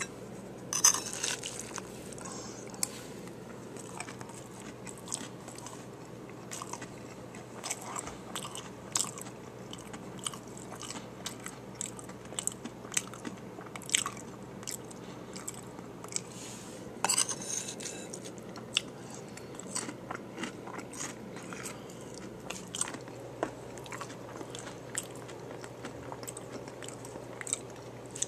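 Chewing and crunching of a hard-shell taco bowl: a steady run of small crisp crunches, with louder bursts of biting about a second in and again around seventeen seconds in.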